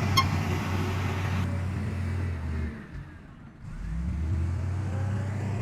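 Heavy diesel earthmoving machinery running, a low steady engine drone that drops away for about a second midway and then picks up again. A short sharp click comes right at the start.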